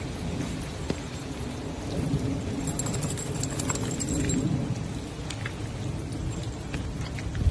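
Steady rain noise with a low rumble, and light scattered ticks.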